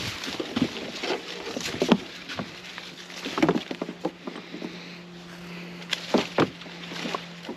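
Irregular knocks, clunks and bumps of someone moving about and working on a small boat while tying it up, over a steady low hum.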